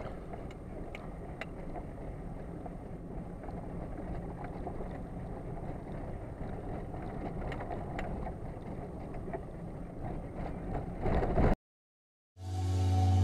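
Steady noise of a boat on the water, with a few faint clicks. It cuts off suddenly near the end, and music starts to fade in.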